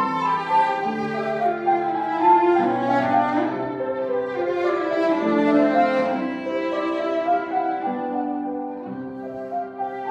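Cellos playing bowed, sustained notes in several parts at once, with the notes changing about once a second.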